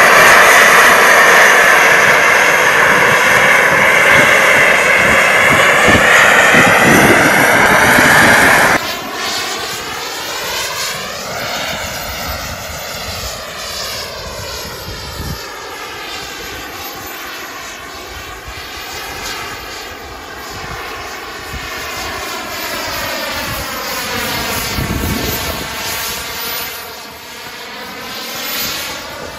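Model jet's SW140 turbine engine running, loud and close at first. About nine seconds in the sound cuts abruptly to a quieter, more distant turbine whine that slowly rises and falls in pitch as the jet manoeuvres.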